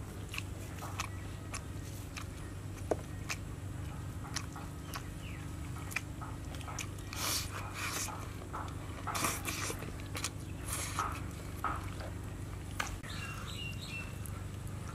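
Close-up eating and food-handling sounds: short wet clicks, smacks and crunches of chewing and of fingers pulling apart roasted jackfruit flesh and cooked fish. These come in scattered bursts over a steady low hum.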